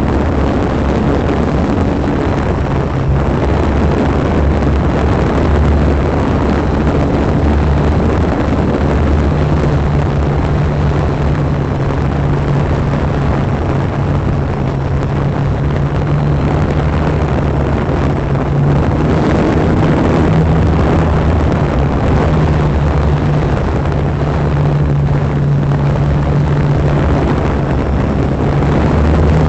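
Quadcopter drone's electric motors and propellers humming steadily, heard up close from the drone's own camera, with the pitch shifting a little as it hovers and turns.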